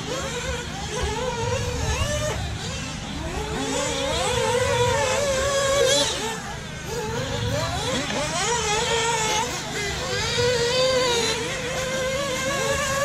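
Several RC off-road buggies racing on a dirt track, their motors whining in overlapping pitches that rise and fall as the cars accelerate, brake and jump.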